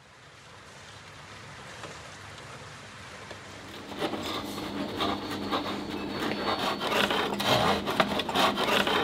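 Faint background noise fades in, then from about four seconds in a knife saws through a bread roll on a cutting board: rough scraping strokes with clicks.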